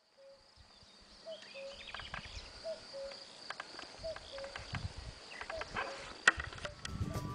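Outdoor countryside ambience: a repeated two-note call, high then lower, about five times roughly a second and a half apart, over a faint steady high hiss. A few light handling clicks come through, with one sharp click near the end.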